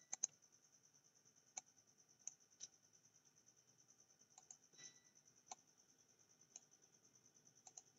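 Faint computer mouse clicks, about ten of them at uneven intervals, over near silence with a faint steady high hiss.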